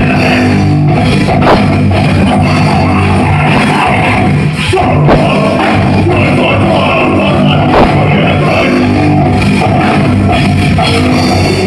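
Djent band playing live: heavy distorted guitars, bass and drums, in a loud, overloaded recording.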